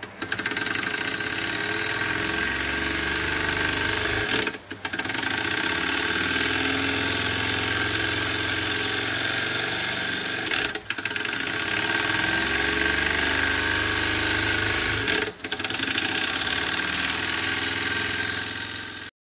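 Retrol SE-02 model horizontal steam engine running fast on air fed through a hose to its steam chest: a steady hissing, clattering run. The sound drops out briefly three times and cuts off suddenly near the end.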